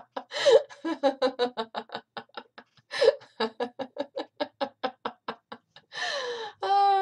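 A woman laughing heartily in a long run of quick 'ha-ha' pulses, about five a second. It is deliberate laughter-yoga laughter. Near the end it turns into a longer breathy sound and a drawn-out voiced tone.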